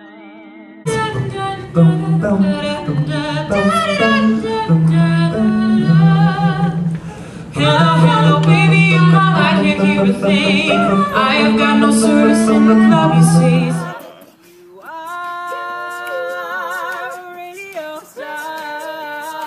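A cappella vocal group singing in harmony, several voices over a sung bass line, with vibrato on held notes. About a second in a louder recording with the bass begins; about two-thirds of the way through it gives way to a quieter recording of held, wavering voices without the bass.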